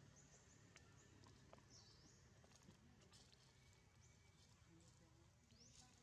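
Near silence: faint outdoor ambience with a few short, high-pitched chirps and soft clicks.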